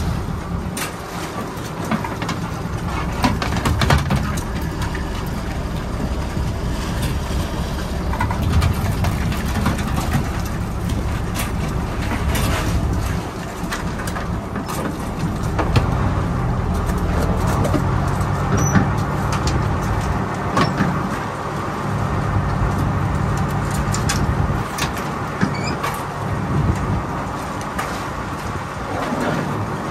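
A commercial crab work boat's engine running steadily under way, with water washing along the hull and repeated clanks and rattles of wire crab pots being handled on deck.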